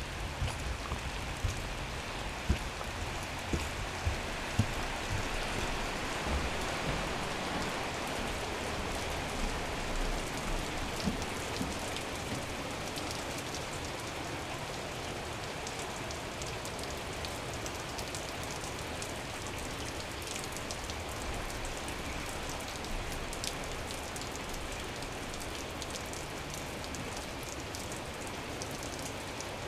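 Steady rain: an even hiss of falling drops with scattered small ticks, and a few louder knocks in the first five seconds.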